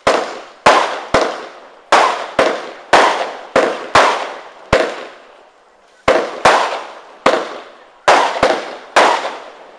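A 120-shot consumer firework barrage firing: sharp bangs about two a second, each with a fading tail, with a pause of about a second and a half near the middle.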